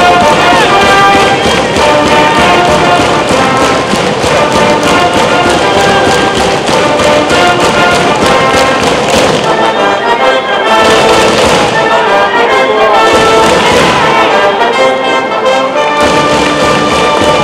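High school brass band playing a baseball cheering tune, brass over drum beats.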